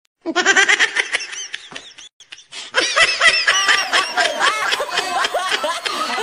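People laughing hard in quick, high-pitched bursts. The laughter breaks off briefly about two seconds in, then carries on.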